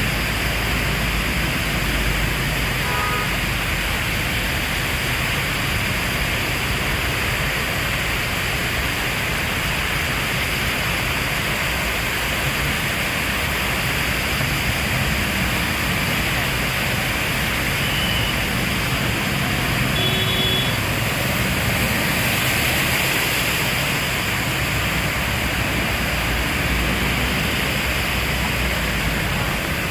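Heavy rain falling in a steady, even hiss, with a few faint brief tones now and then.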